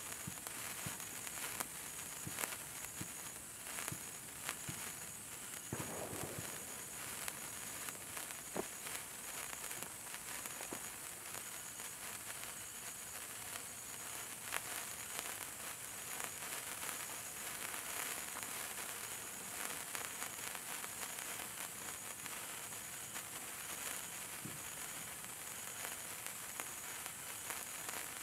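A 36-inch gold sparkler burning with a steady fizzing hiss and many small sputtering crackles.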